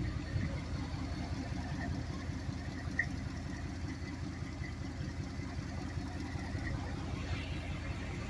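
1989 Chevy pickup's throttle-body-injected engine with a roller cam idling steadily, a low, even rumble with quick regular pulses.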